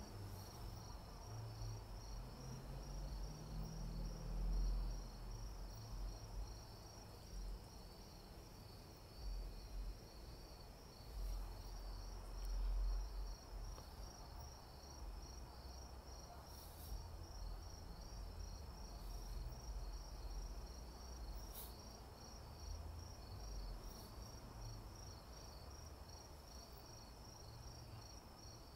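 Crickets chirping in a steady pulsing trill, under a low rumble that swells a couple of times, with a few faint sharp crackles from the burning wood fire.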